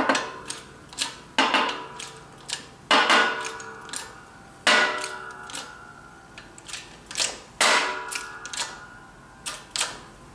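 Sharp metallic clicks, each with a short ringing tail, come at irregular intervals about a dozen times. A shop press is forcing the input shaft bearing into a Triumph Spitfire 1500 single-rail gearbox case.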